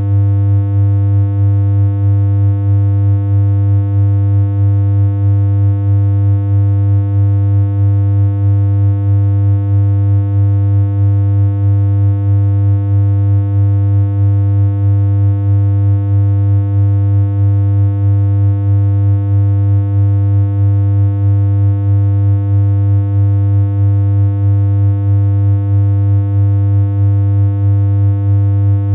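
A steady synthesized electronic hum: one low pitch held without change, buzzy with overtones, and a slight regular pulse in loudness.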